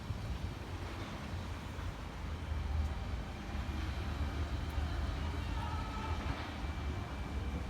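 Outdoor city background: a steady low rumble with faint distant voices.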